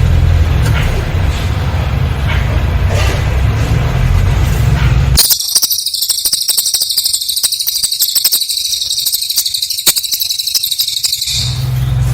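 A low, steady rumble for about five seconds, then a cililin bird bursts into a very high, rapid trill of tightly packed notes lasting about six seconds, the 'nembak rapat' song used to train murai batu; the rumble comes back as the trill ends.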